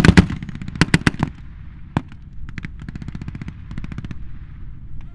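Blank-firing machine-gun and small-arms fire: a rapid burst of loud shots in the first second and a half, a single shot about two seconds in, then scattered fainter shots, over a steady low rumble.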